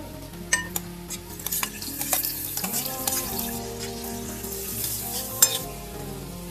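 River shrimp sizzling as they are stir-fried in a pan, with a utensil scraping and clacking against the pan several times; the sharpest clack comes about five seconds in.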